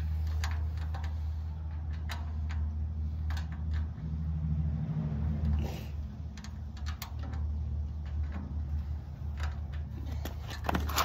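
Scattered sharp metal clicks and clinks from the steel panels and rails of a barbecue pit being fitted together, over a steady low rumble.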